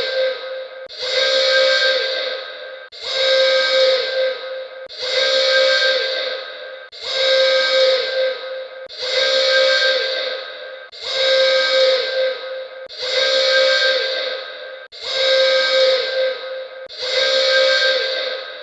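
Alarm sound effect: a loud, whistle-like pitched tone mixed with hiss, starting abruptly about every two seconds and fading away before the next one, repeating throughout.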